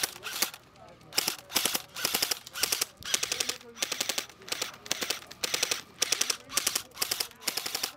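Airsoft AK-style rifle firing short full-auto bursts, each a quick rattle of shots, about two bursts a second with one brief pause near the start.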